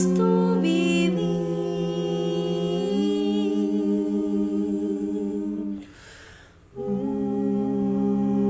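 Wordless a cappella vocal harmony: several voices humming long held chords, shifting to a new chord about a second in and again about three seconds in. Near six seconds in they break off for about a second, then come back in on another held chord.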